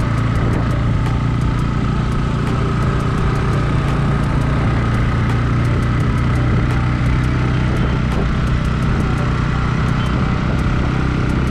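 Bajaj Pulsar N160's single-cylinder engine running at a steady cruising speed, over a steady rush of riding noise.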